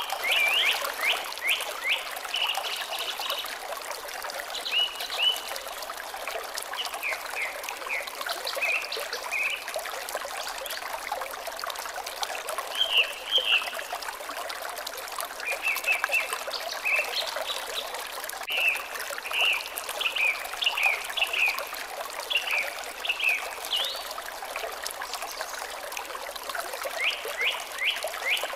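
Water trickling steadily, with birds singing over it in repeated short chirps and quick trills, in bursts throughout.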